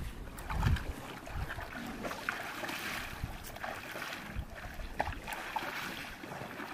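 Shallow pond water sloshing and splashing irregularly around the legs of wading cattle, with a low gust of wind on the microphone about half a second in.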